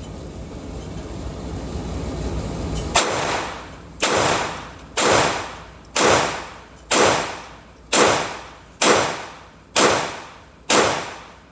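Sig Sauer P322 .22 LR pistol fired in slow, steady succession: after about three seconds, nine shots roughly a second apart, each followed by a short echo off the walls of an indoor range booth.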